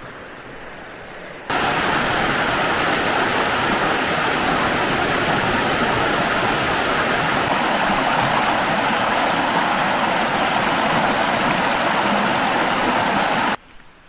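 Rocky river rushing over a shallow cascade: a steady, loud wash of water that starts suddenly about a second and a half in and cuts off shortly before the end. The river is running high after a night of heavy rain.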